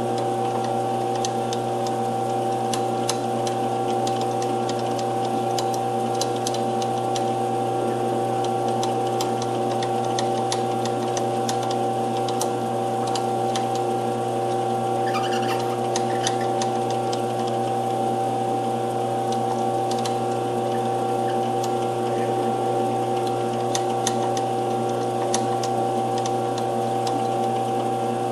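Small metal lathe running steadily at a constant pitch while a small drill in the tailstock chuck bores into the end of a spinning bronze bar. Scattered light ticks sound over the steady hum.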